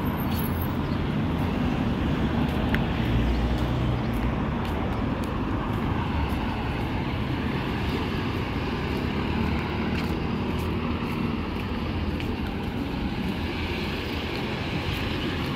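Steady street traffic noise: cars passing on a city road, a continuous rush of engines and tyres.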